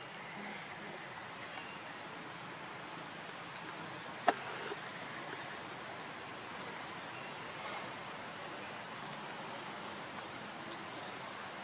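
Steady outdoor background hiss with an even, high-pitched drone running throughout, broken by one sharp click a little over four seconds in.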